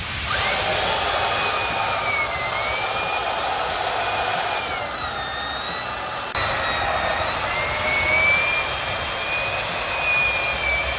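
Portable band saw running and cutting through a worn motorcycle rear tire. Its motor whine dips in pitch and recovers several times as the blade loads up in the rubber.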